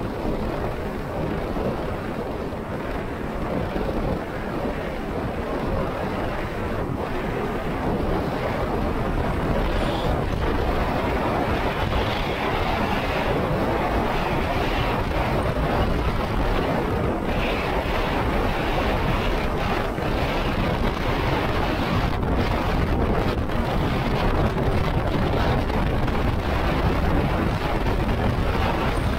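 Wind blowing on the microphone of a motorboat under way, mixed with water rushing along the hull: a steady noise with no clear engine pitch, a little louder from about eight seconds in.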